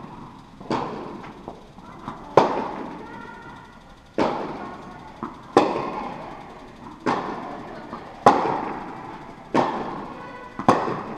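Tennis ball struck back and forth by rackets in a rally, about eight sharp pops roughly every one and a half seconds, alternating louder and fainter, each ringing out with a long echo in a large indoor tennis hall.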